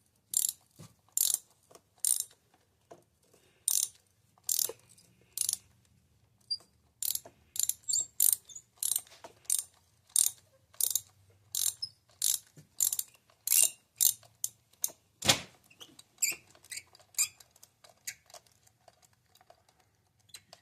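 Ratchet wrench clicking in short bursts, one burst on each back-swing, as a spark plug is unscrewed from a Ford Escape 2.5 L four-cylinder engine. There is a louder knock about fifteen seconds in, then lighter clicks.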